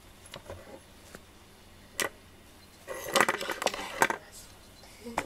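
Sharp little clicks and rattles of small hard objects on a desktop: a single click about two seconds in, a quick cluster of clicking a second later, and one more click near the end.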